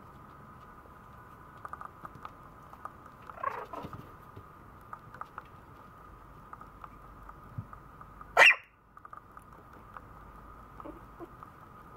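Maltese puppy giving one loud, short bark about eight seconds in, after a softer falling yelp a few seconds earlier, with light tapping of paws between.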